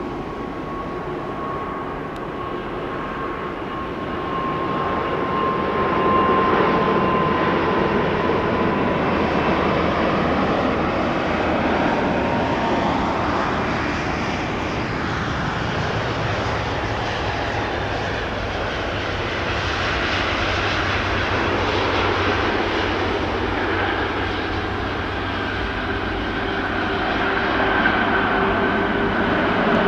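Airbus A340-600's four Rolls-Royce Trent 500 turbofan engines running, a steady rush with whining tones that drift slightly in pitch. It grows louder about five seconds in and stays loud.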